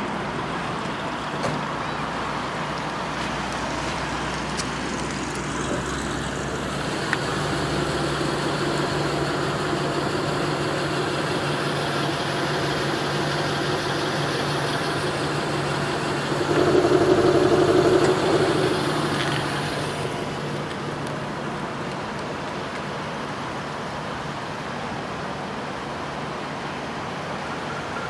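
The supercharged 4.2-litre V8 of a 2006 Range Rover idling quietly at the rear and exhaust, a low steady hum mixed with outdoor traffic noise. About two-thirds of the way in a louder pitched swell rises for a couple of seconds and then fades.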